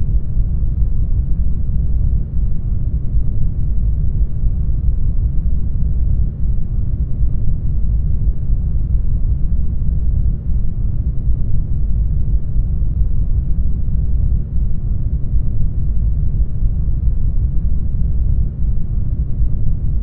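Isolation-tank ambience: a steady, deep, muffled rumble with no distinct events in it.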